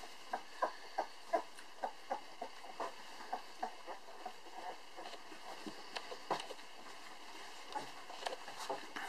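Eleven-day-old Belgian Malinois puppies suckling at their mother: a run of small sucking clicks and squeaks, about three a second at first, then fewer and further apart.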